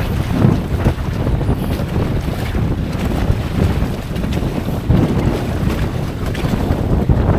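Wind buffeting the microphone in a constant low rumble that rises and falls with the gusts, with waves washing against the boat underneath.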